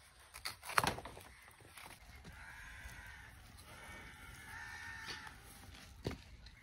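A sudden rip about a second in as a banana leaf is torn from the plant. This is followed by a few seconds of a farm animal calling in the background and a short sharp tap near the end.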